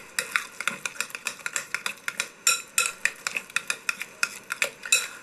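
A utensil stirring thick guacamole in a glass bowl, making quick, irregular clicks and scrapes against the bowl.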